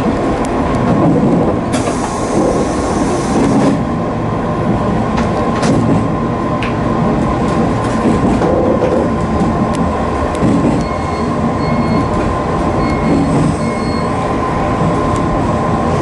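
JR 185 series electric train heard from its driver's cab as it runs slowly into its terminal platform: steady wheel-on-rail running noise with clicks over the rail joints. A hiss of air about two seconds in lasts about two seconds, and a few short beeps sound from about eleven seconds in.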